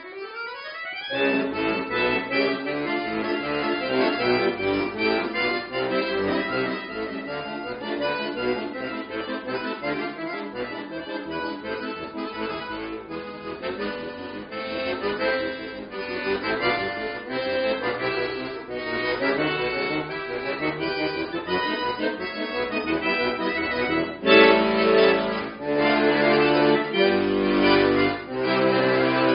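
Chromatic button accordion played solo: fast runs and dense chords. It swells near the end into loud, held full chords over deep bass.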